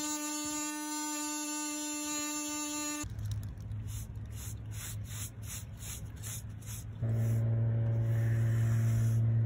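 DeWalt 20V MAX XR oscillating multitool with a sanding pad buzzing steadily as it sands wood filler on a window frame, then cutting off after about three seconds. A low steady hum follows with soft, regular paintbrush strokes, and the hum grows louder about seven seconds in.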